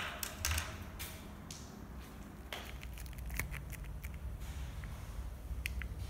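Handling noise: scattered clicks and short rustles, loudest at the very start and about half a second in, over a steady low hum.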